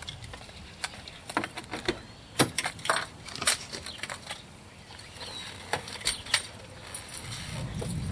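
Footsteps, keys and the handle and latch of a Chevrolet S-10 pickup's driver door being opened: a scattered series of sharp clicks and knocks, loudest about halfway through, then the rustle of someone settling into the seat.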